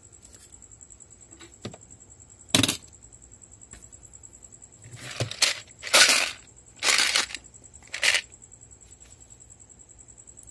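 A sharp knock, then screws rattling and sliding inside a plastic box as it is lifted and tipped, in four loud bursts about 5 to 8 seconds in.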